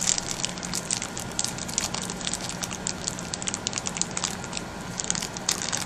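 Irregular light clicking and crackling of small parts and a tool being handled close to the microphone, over a faint steady hum.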